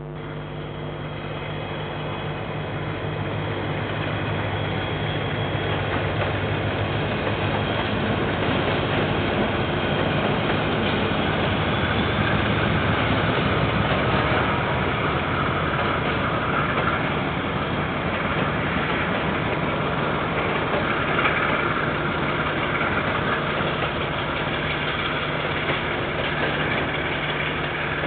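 KiwiRail diesel train passing: a steady low locomotive engine hum under the rumble of wheels and wagons on the rails, building over the first few seconds and then holding steady.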